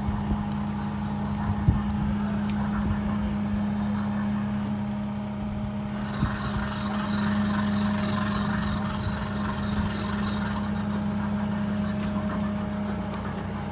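Engine running steadily at idle, driving a squash harvest conveyor belt. A hiss joins about six seconds in and lasts about four seconds, and there is a single sharp knock just under two seconds in.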